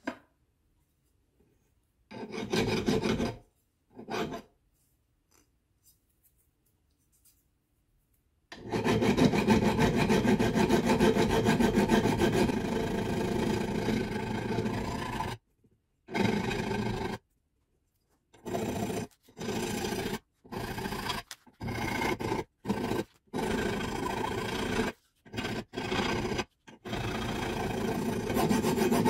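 A flat hand file rasping across the steel muzzle end of a Savage Axis II .223 barrel clamped in a vise, filing the end flat before it is threaded. There are two short strokes, then about seven seconds of unbroken filing, then a run of short strokes with brief pauses between them.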